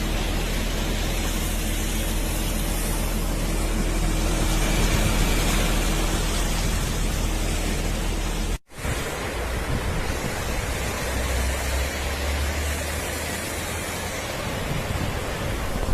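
Steady rushing noise of a rain and wind storm, with a low steady hum beneath it in the first half. The sound cuts out for an instant a little over halfway through, then resumes.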